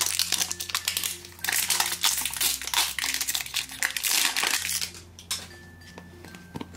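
Plastic wrapper crinkling and crackling as it is peeled by hand off a toy ball's clear plastic capsule, a dense run of crackles that eases off for the last two seconds.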